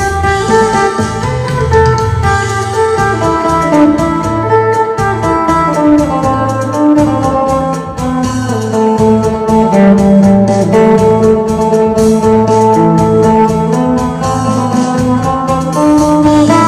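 Isan phin (three-string lute) picking a fast lam phloen melody over a backing track with bass, a steady beat and held keyboard-like chords.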